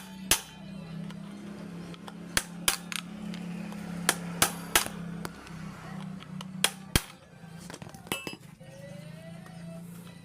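Sharp metallic clinks and knocks, about nine of them at irregular intervals, as metal tools or parts are handled during repair work, over a steady low hum.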